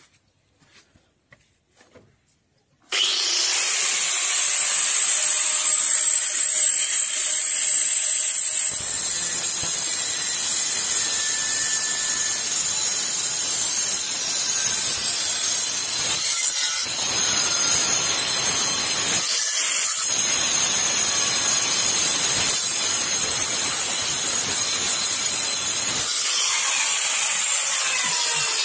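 Angle grinder with a GRAFF Black Professional diamond-coated metal cutting disc switching on about three seconds in and running up, then cutting through thin sheet steel from about nine seconds in. The cut breaks off briefly twice and stops about 26 seconds in, leaving the grinder spinning free.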